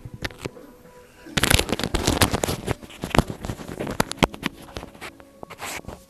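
Close crackling rustle of clothing with many sharp clicks and snaps as a man settles into his seat; the noise thickens about a second and a half in.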